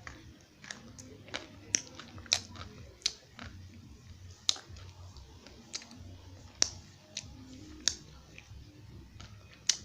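Dry edible eko clay being bitten and chewed close to the microphone: sharp, crisp cracks at irregular intervals, roughly one a second, with soft mouth sounds between them.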